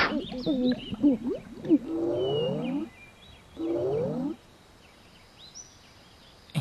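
A cartoon character's voice giving two long, drawn-out moans, each rising and then falling in pitch, after a second or so of quick wavering vocal sounds. Faint high chirps like birdsong follow in the quiet near the end.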